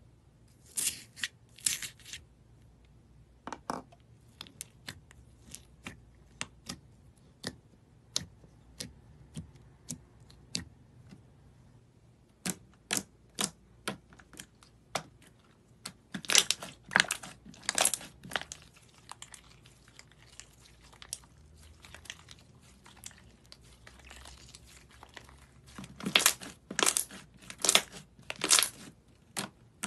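Foamy slime pressed, poked and stretched by hand, its air pockets popping in sharp clicks and crackles. Scattered single pops run throughout, with denser runs of crackling near the start, around the middle and near the end.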